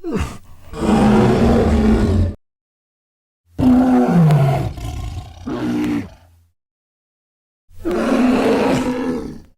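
Mother bear sound effects from an animated film: three separate loud bear roars, each two to three seconds long, with dead silence between them; the second drops in pitch and breaks into a shorter follow-up growl.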